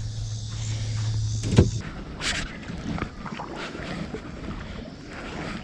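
Kayak on the water: scattered small knocks and water noise. A steady low hum cuts off suddenly about two seconds in.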